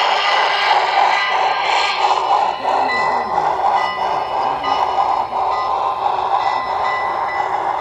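Model train running along the track: a steady clatter of wheels and motor noise that carries on after the cars have passed.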